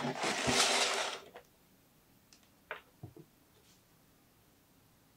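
A rustle and scrape of packaging lasting just over a second as a white mirror stand is drawn out of its box, followed by a couple of light taps as it is set down on a wooden floor.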